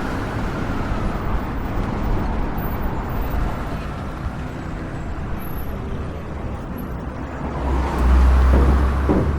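City street traffic ambience: a steady wash of passing cars and engines, with a louder low rumble about eight seconds in, like a heavy vehicle going by.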